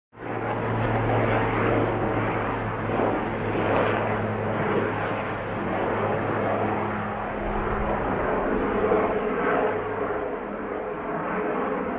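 Helicopter in flight: a steady engine drone with churning rotor noise that cuts in abruptly at the start and holds at a fairly even level.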